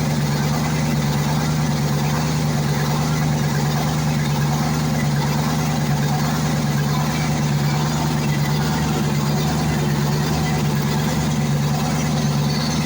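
YaMZ-238 V8 diesel engine running steadily after a full rebuild, with an even, unchanging note.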